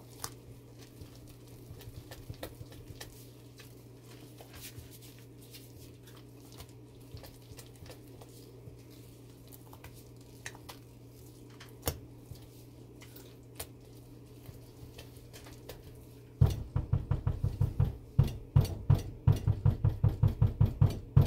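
Silicone spatula stirring and scraping thick, cooking hot-process soap batter in a stainless steel pot: soft scattered scrapes and light clicks, then in the last few seconds quick thudding strokes, about five a second, as the batter is worked harder.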